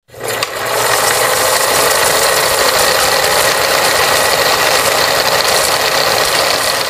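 Film-projector sound effect: a steady mechanical clatter with hiss that runs evenly, then fades out near the end.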